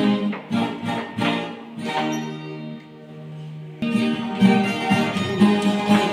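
Acoustic guitar strumming a steady rhythm, then letting a chord ring for almost two seconds about two seconds in before the strumming picks up again.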